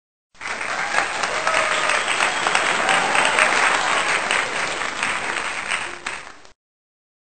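A crowd applauding: dense, even clapping that starts abruptly and cuts off sharply after about six seconds.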